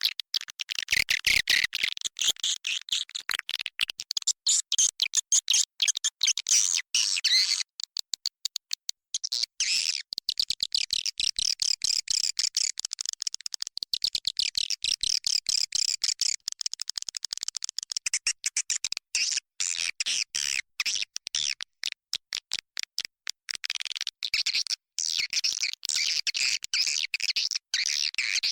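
Edible-nest swiftlets twittering inside a swiftlet house: a dense, continuous stream of rapid high chirps and clicks. It is a swiftlet-farming lure call, played to draw swiftlets in to roost and nest.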